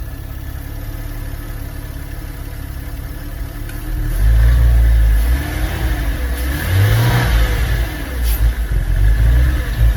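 Porsche Boxster 986's 3.2-litre flat-six engine running with a cheap aftermarket mass airflow sensor fitted: steady for about four seconds, then revved up and down, with uneven surges near the end.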